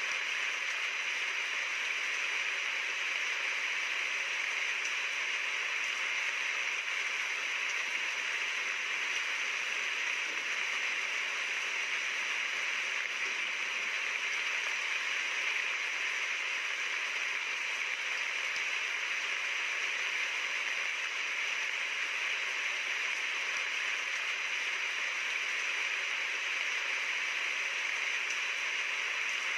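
Steady rain falling: an even, unchanging hiss with little low rumble and no single drops standing out.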